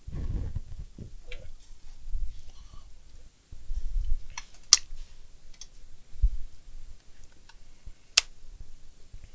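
Handling noise at a workbench: scattered dull knocks and bumps with a few sharp clicks, the loudest click about halfway through and another near the end.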